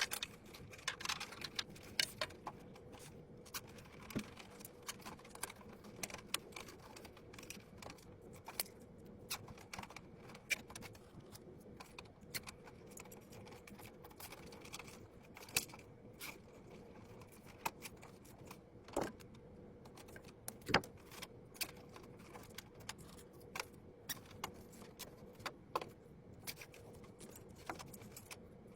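Irregular small clicks, taps and rattles of metal and plastic computer parts being handled and fitted during a PC build, over a faint steady hum.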